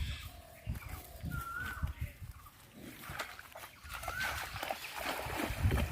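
Outdoor farm-field ambience: irregular low rumbling thumps, with two short rising-and-falling bird chirps, about a second and a half in and again past four seconds.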